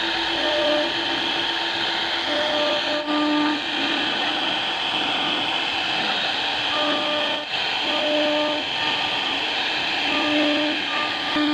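CNC router spindle running and cutting into wood: a steady, hissing machine noise, with short steady tones that come and go every second or so as the machine moves.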